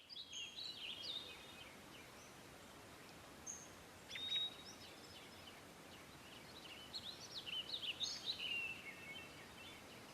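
Birds chirping over a faint steady background hiss. Short high calls come in clusters near the start, around four seconds in, and again from about seven to nine seconds in.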